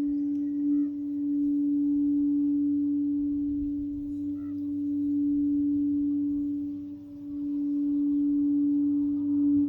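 Sacral chakra singing bowl sounding one sustained low tone with a faint higher overtone. Its loudness swells and ebbs, dipping briefly about seven seconds in before building again.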